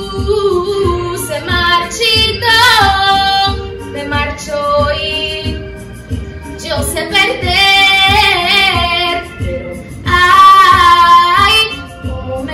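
A girl singing solo over a backing track with a steady low beat. She sings in long phrases of held notes with vibrato, and the loudest phrase comes near the end.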